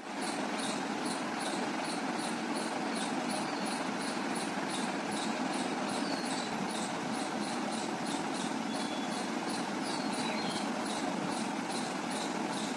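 Outdoor garden ambience: a steady background hiss with an even, fast chirping pulse about four times a second, and a couple of short bird whistles about halfway through and again later.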